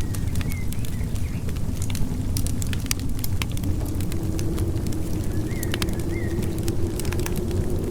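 Wood fire crackling in a fireplace, with irregular sharp pops and snaps over a steady low rumble of snowstorm wind.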